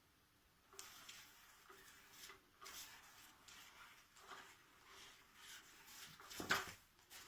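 Faint, irregular rustling and scratching from the Undercover Mouse cat toy being played with by cats, with one louder thump about six and a half seconds in.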